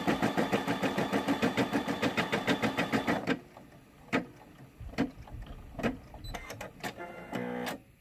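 Brother SE600 embroidery machine stitching at a fast, even rate of about nine stitches a second, stopping abruptly after about three seconds. A few separate clicks follow, then near the end a short motor whir as the machine cuts the thread at the end of the stitching.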